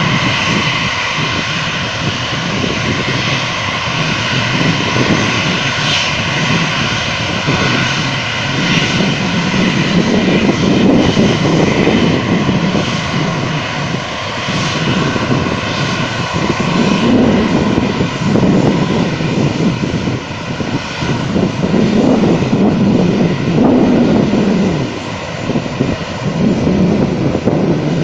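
Edelweiss Air airliner's jet engines running while it taxis: a steady whine made of several high tones over an uneven low rumble.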